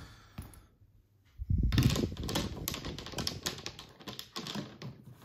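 Golf irons being handled and sorted: a thud about a second and a half in, then a quick run of light clicks and taps as the steel clubheads and shafts knock together.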